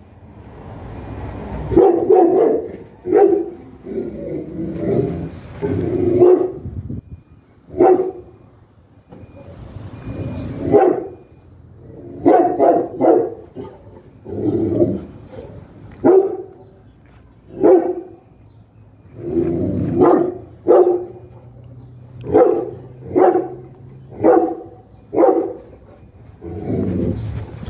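Dog barking repeatedly, in single barks and short runs of two or three, about a second apart.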